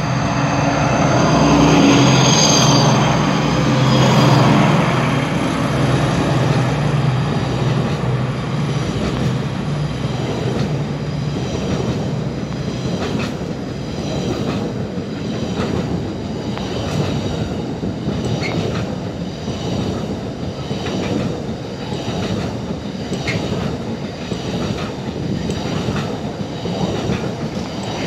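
DB class 218 diesel locomotive engine running under power as it passes close by. Then a long rake of double-deck car-transport wagons rolls past with a steady rumble and repeated wheel clicks over the rail joints.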